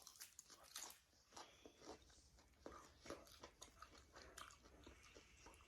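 A person chewing a bite of pan-fried wild game leg: faint, irregular crunches and mouth clicks.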